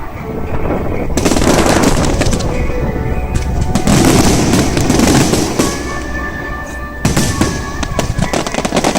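Fireworks bursting and crackling in quick succession over music playing from the display's sound system.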